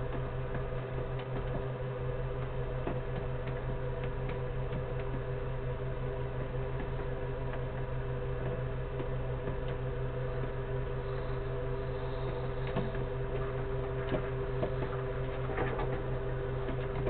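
Steady electrical hum and hiss, with scattered faint clicks that come more often near the end.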